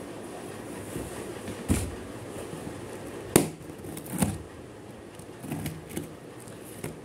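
Cardboard shipping box handled while a pen is jabbed and dragged along the packing tape on its seam to cut it open: several sharp knocks and scrapes, the loudest about three and a half seconds in.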